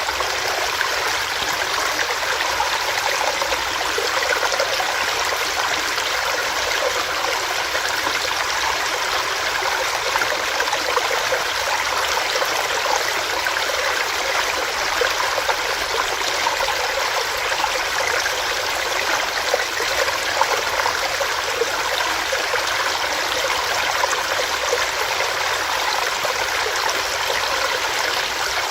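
Small rocky stream with water running and splashing over rocks, a steady dense rush with fine bubbling detail.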